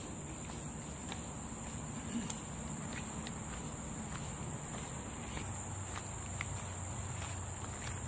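Steady high-pitched drone of insects in the forest, with soft footsteps on a gravel and dirt trail.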